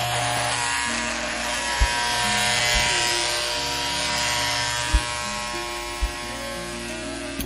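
Electric hair clippers buzzing steadily over background music, with a few short low thumps.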